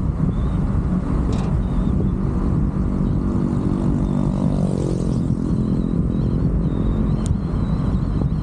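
Car driving at speed, heard as a steady loud rumble of road and wind noise buffeting the microphone. About four seconds in a pitched hum briefly rises and falls, and a single sharp click comes near the end.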